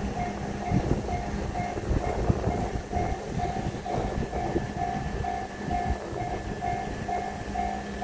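Japanese level-crossing warning bell ringing in an even, repeating ding about twice a second, sounding while the lights flash and the barriers are down for an approaching train. Underneath is a low, uneven rumble.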